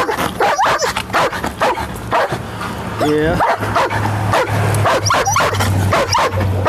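Police K9 drug dog barking, yipping and whining excitedly in rapid short cries, with brief rising whines again and again and a longer falling whine about three seconds in. A steady low hum runs underneath.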